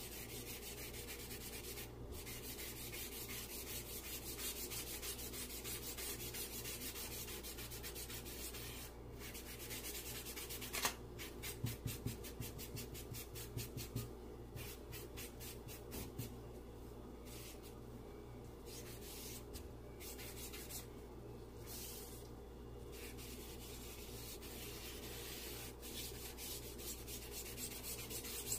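Charcoal being rubbed and blended into drawing paper with a gloved hand and a small shading tool: a steady scratchy rubbing in runs of quick back-and-forth strokes. Several sharper knocks and scrapes about halfway through.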